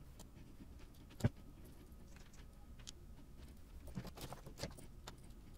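Quiet handling noises from small parts and tools on a workbench: one sharp click about a second in, then a few light clicks and taps around four seconds in.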